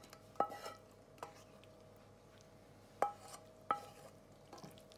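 Wooden spoon scraping cooked mince out of a metal frying pan into a glass dish, with a few sharp knocks of spoon and pan that ring briefly, the loudest about half a second, three seconds and three and a half seconds in.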